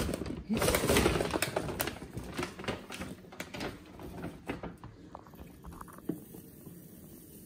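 Dry basmati rice grains handled and poured from a glass jug into a glass storage jar, with the plastic rice bag rustling: a louder rush in the first couple of seconds, then scattered pattering ticks that thin out.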